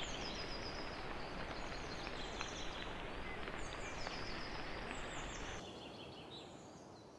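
Small birds chirping and calling in short, repeated high notes over a steady background hiss, recorded through a trail camera's microphone. The hiss thins suddenly about five and a half seconds in, and the whole sound fades out near the end.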